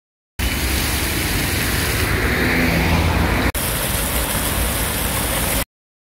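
Fountain jets spraying and splashing into a basin, with a car driving past close by. The sound breaks off abruptly about three and a half seconds in. It resumes as the steady rush of many jets falling into a large pool, then stops short.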